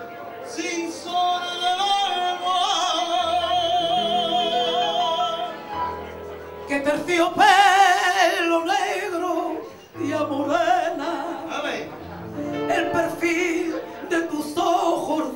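A woman and a young man singing a Spanish song into microphones in turn, over instrumental accompaniment. The voices hold long notes with wide vibrato.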